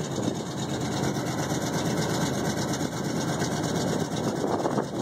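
Chevy 3/4-ton pickup truck engines idling steadily, a rough, even engine rumble.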